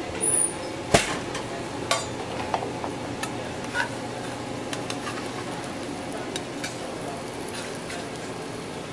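Metal spatula scraping and clicking against a skillet as pieces of cheese-topped chicken are lifted out, over a steady sizzle from the hot pan. The sharpest click comes about a second in, with a few lighter ones after.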